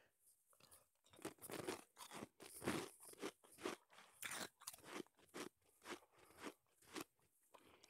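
Shaved ice crunched between the teeth, chewed right at an earphone microphone: a steady rhythm of crunches, two to three a second, starting about a second in.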